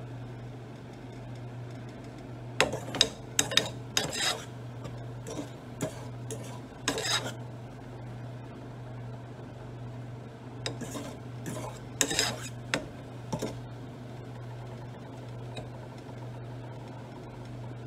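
A utensil clinking and scraping against a cooking pot during stirring, in two clusters of sharp knocks with a single one in between, over a steady low hum.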